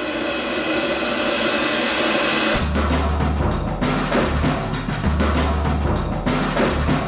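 A steady droning hiss that swells, then, about two and a half seconds in, drum-driven music cuts in with a heavy bass beat and sharp percussive hits.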